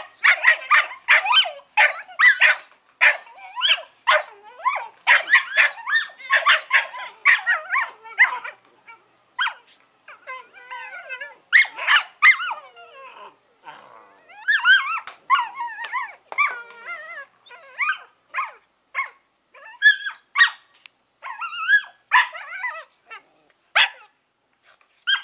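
Smooth collie puppies, 11 weeks old, yapping and yipping at each other in rough play. At first the high, rapid yaps come several a second. After about eight seconds they grow more scattered and mix with drawn-out wavering whines.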